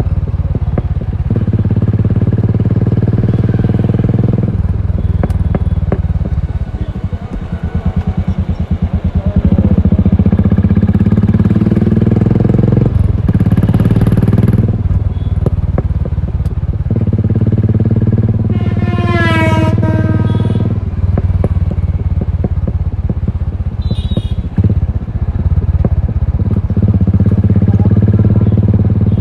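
Royal Enfield Continental GT 535's single-cylinder engine through an aftermarket exhaust, heard while riding, with the throttle rising and easing off several times. A brief high-pitched tone that bends upward cuts in about nineteen seconds in.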